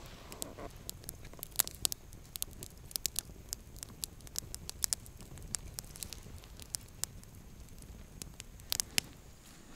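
Campfire crackling and popping, with irregular sharp snaps of burning wood, a few louder pops near the end.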